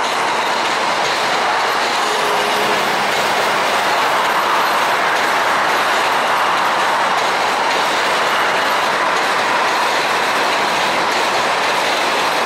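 New York City Subway train running past on the Williamsburg Bridge's track, a steady, loud rumble and clatter of steel wheels on rails.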